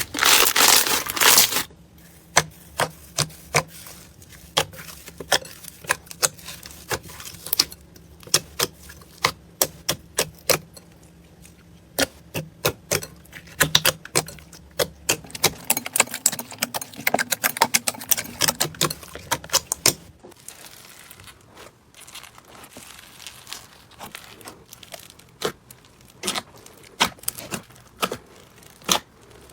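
Slime being squeezed and worked by hand: irregular sharp clicks and pops, a few a second. It opens with a brief burst of crinkling that stops about a second and a half in.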